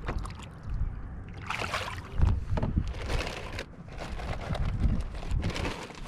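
Water sloshing and splashing around a fishing kayak: a run of splashy swishes roughly a second apart, over a low rumble.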